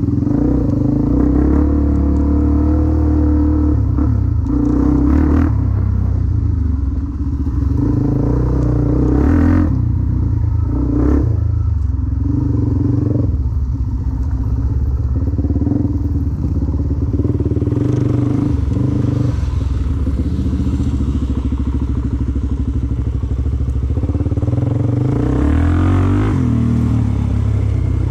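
Dirt bike engine running under riding load, its note changing with the throttle, with a few short knocks and clatter.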